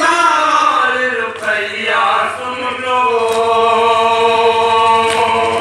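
Men chanting a noha, an Urdu Shia lament, into microphones in a slow melodic line, settling about halfway into one long held note that breaks off at the end.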